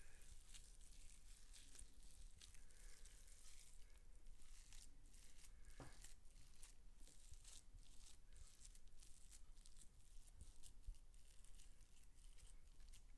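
Faint soft tearing and squishing of raw minced meat pulled apart by hand and pressed down onto a baking tray, with scattered small clicks.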